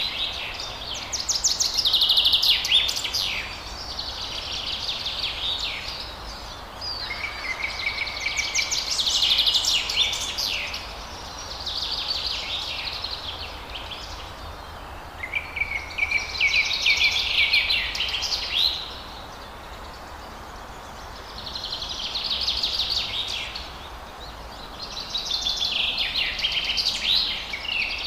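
Forest birds singing: high, rapid phrases of chattering notes and short whistles, each lasting about two seconds, recurring every three to four seconds over a steady low background noise.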